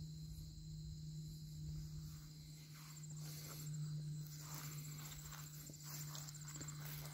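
Footsteps on the ground, starting about two and a half seconds in and repeating at a walking pace, over the steady high chirring of insects and a low steady hum.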